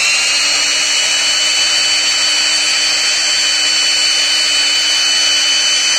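An ordinary electric drill (not a hammer drill) running at a steady speed with a constant whine as it bores a hole through a plastic cable duct. A plain drill is used so the duct doesn't split, as it would under a hammer drill.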